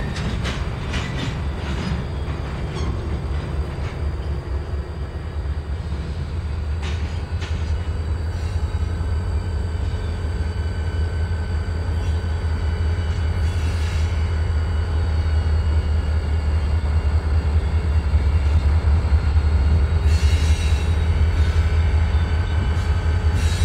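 Norfolk Southern diesel-electric locomotive rolling past with its diesel engine running in a steady low hum, getting louder as it draws near. There are a few knocks in the first seconds.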